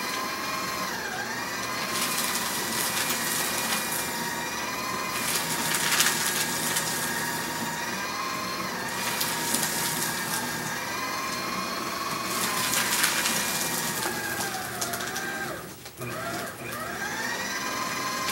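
Small electric paper shredder running with a steady motor whine that dips in pitch each time sheets are fed in, with several bursts of crunching paper being cut. About three-quarters of the way through the motor bogs down and cuts out for a moment, then spins back up.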